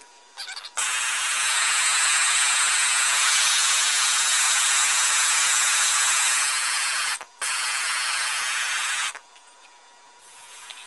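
MAP gas torch flame hissing steadily as it heats an aluminum joint for brazing. It breaks off very briefly once and stops near the end.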